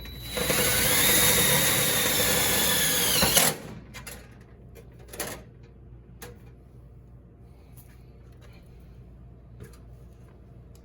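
Power drill running for about three seconds with a steady whine that dips slightly just before it stops, followed by a few light clicks and knocks.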